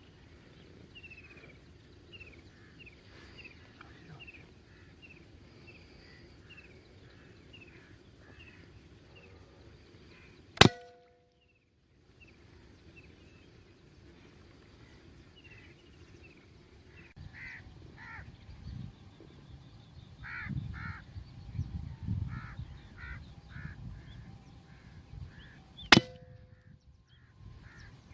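Two shots from a P15 PCP air gun, about fifteen seconds apart. Each is a sharp crack with a brief ringing tone. Between them a bird calls over and over in short chirps, about two a second.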